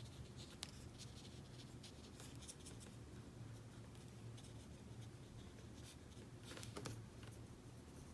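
Faint scratching and light tapping of a small watercolor brush working on watercolor paper and picking up paint from the palette, over a low steady room hum.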